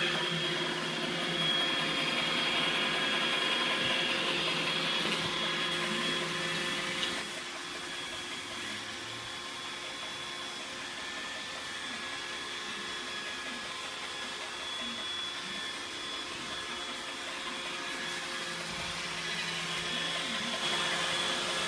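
iRobot Roomba robot vacuum running, a steady motor hum with a high whine over it, stepping down in level about seven seconds in.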